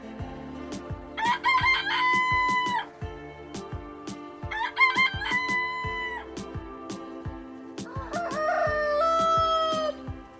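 Roosters crowing three times, each a long cock-a-doodle-doo; the third crow, near the end, is lower-pitched than the first two.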